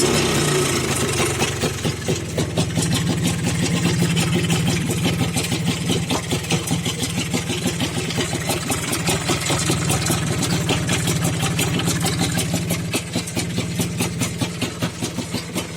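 An engine idling steadily with an even, rapid pulse, having just settled from a rev; the pulsing grows more distinct near the end.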